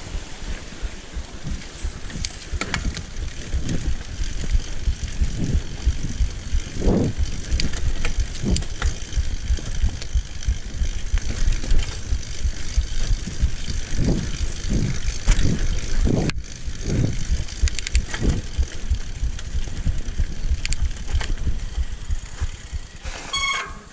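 Mountain bike riding down a rough dirt forest singletrack: a steady rumble of the tyres on the trail with frequent knocks and rattles as it runs over bumps. A brief high-pitched squeal near the end.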